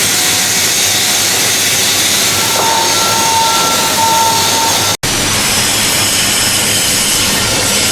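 Loud, steady machine hiss with faint whining tones in the middle, cutting out for an instant about five seconds in.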